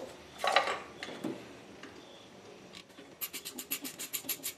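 Hand ratchet wrench with an extension and a T25 Torx bit clicking quickly, about nine clicks a second for over a second near the end, as it turns out the bolts of the intake manifold runner control solenoid plate. A brief clatter of the tool about half a second in.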